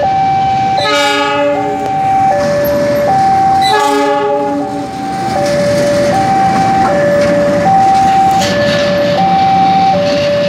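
Railway level-crossing alarm sounding in a steady alternating two-tone pattern, while a KAI CC206 diesel locomotive passes and sounds its horn twice, about a second in and about four seconds in, each blast about a second long. The locomotive's engine runs underneath.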